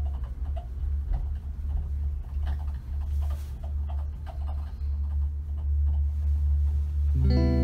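A steady low rumble with light, scattered clicks and knocks. Guitar music comes in near the end.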